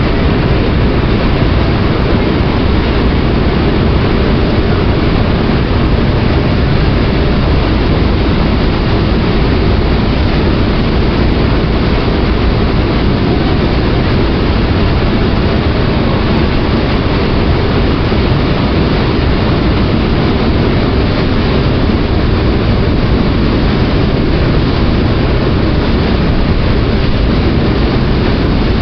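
Ferry under way: its engine running steadily in a constant loud drone, mixed with rushing water.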